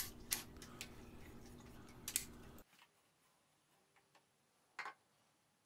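A few faint clicks and light knocks as a mahogany bowl is handled and taken off a metal lathe chuck, over a low steady hum that stops about halfway through.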